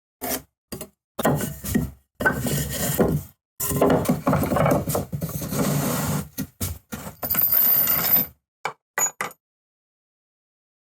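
Wooden boards being handled, scraping and knocking against one another, heard in a run of short clips that start and stop abruptly with dead silence between them.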